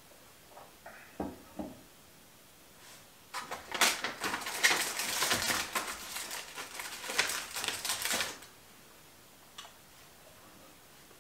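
Two light knocks on a wooden table, then about five seconds of dense crinkling and rustling as a plastic bag is handled, which stops suddenly.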